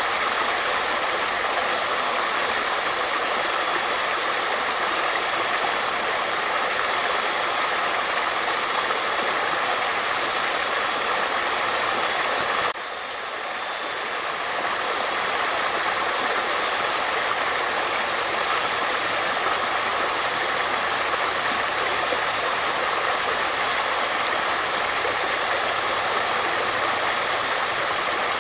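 Water flowing steadily, an even rushing sound. About two-thirds of the way in it suddenly gets a little quieter, then builds back up over a few seconds.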